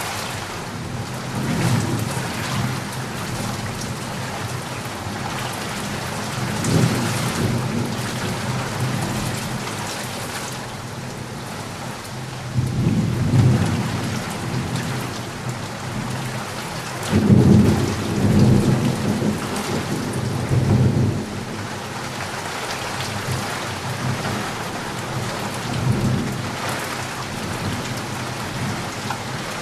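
Steady heavy rain with thunder rolling in low, repeated rumbles, five of them, the biggest and longest about two-thirds of the way through.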